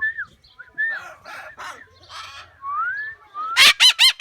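Parrots calling: short whistled notes that slide up and down and a few raspy squawks, then about three and a half seconds in a loud screech that breaks into a fast run of repeated calls, about six a second.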